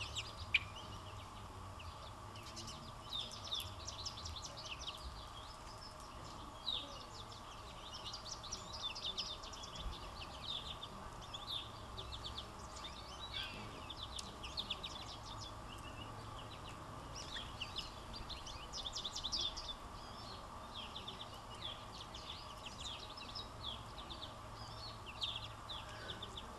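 Songbirds chirping and twittering in quick, repeated bursts, over a faint steady hum.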